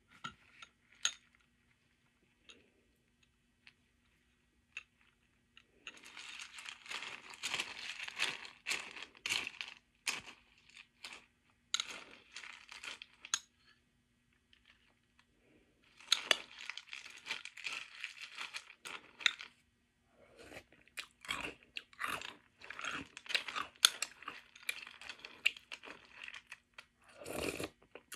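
A person chewing mouthfuls of French Toast Crunch, a crisp sweetened corn cereal: crackly crunching in several bouts of a few seconds each, starting about six seconds in, with short pauses between mouthfuls.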